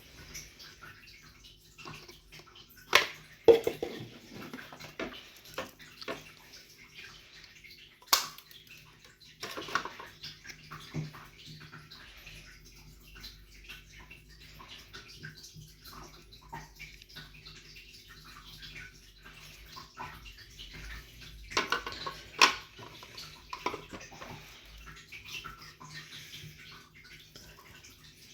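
Water splashing and sloshing in irregular bursts, with a few sharp knocks and drips, over a faint steady hum.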